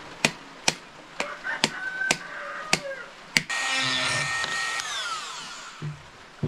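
A series of sharp clicks, then a handheld rotary tool's motor switched on, running at high speed for over a second. It is switched off and winds down with a falling whine.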